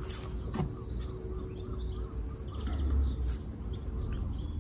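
A wooden beehive frame being worked loose and lifted out of the hive box, with a light knock about half a second in. Small birds chirp in the background, and there is a low rumble near the middle.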